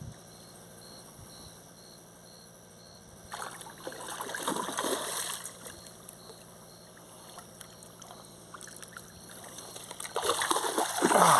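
Water splashing and sloshing as a hooked fish is landed, in two spells: one about three seconds in and another building near the end.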